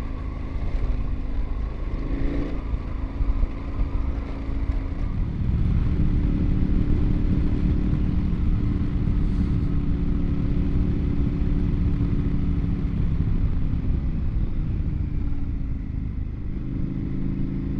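KTM dual-sport motorcycle engine running under way, pulling harder about five seconds in and then holding a steady speed, easing off slightly near the end.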